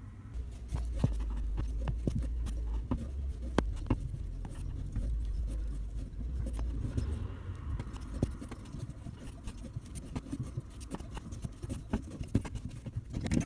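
Mini pipe-slice cutter being turned by hand around copper pipe to cut it to length: irregular light clicks and scraping over a low rumble.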